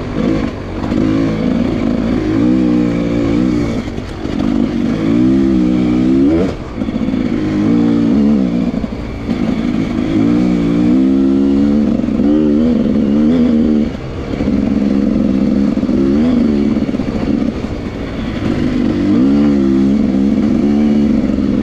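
Dirt bike engine running on a trail ride, revs rising and falling again and again as the rider opens and closes the throttle, with brief dips about six and fourteen seconds in.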